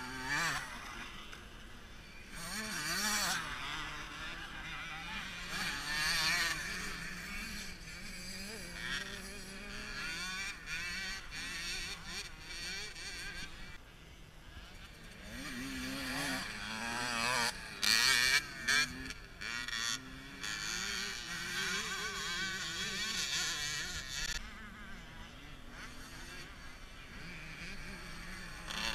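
Small two-stroke youth motocross bikes racing past, their high-pitched buzzing engines revving up and dropping back with each shift and landing, growing louder and fading as several bikes pass.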